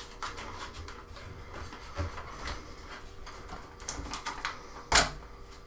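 Adhesive tape pulled off a roll and pressed onto a washing machine's lid: a run of short tearing and rubbing sounds, with one sharp knock about five seconds in.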